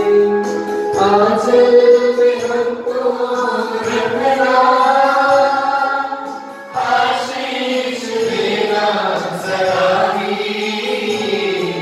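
Congregation singing a devotional hymn together in long, held notes, with a brief pause for breath about seven seconds in.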